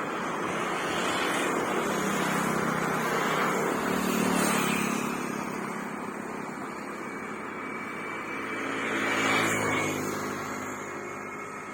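Road vehicles passing by one after another. Engine and tyre noise swells and fades, with two louder passes about four and nine seconds in.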